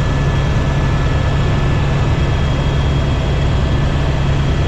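Helicopter engine and rotor noise: a loud, steady low drone with a faint steady high whine over it.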